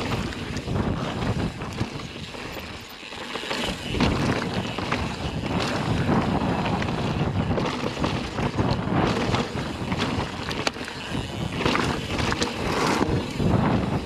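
YT Tues Core 4 29 downhill mountain bike ridden fast down a dirt trail: wind rushing over the microphone and the tyres rumbling, with frequent clatters and knocks from the bike over rough ground. The noise drops briefly about two to three seconds in.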